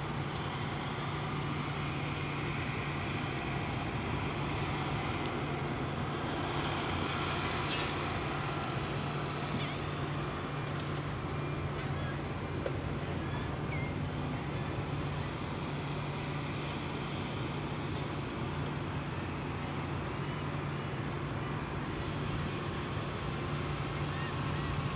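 Steady low mechanical hum of distant industrial machinery carried across open water, with a faint haze of background noise and a light, regular high-pitched chirping through the middle.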